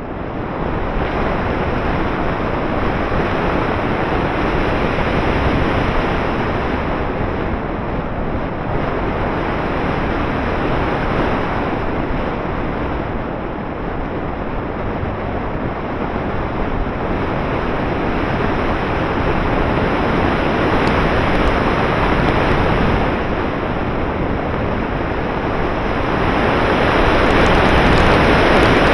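Rush of wind over the microphone of a RunCam 6 action camera riding on an RC glider in flight, a loud, steady noise that swells and eases every several seconds.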